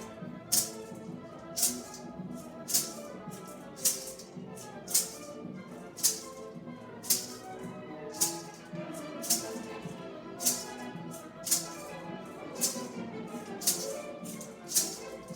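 Symphony orchestra music with a maraca shaken in sharp strokes on the beat, about once a second, and lighter shakes in between.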